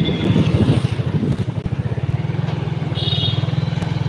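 Motorbike engine running steadily at riding speed, heard from the bike itself, with wind buffeting the microphone in the first second or so. A short high beep sounds about three seconds in.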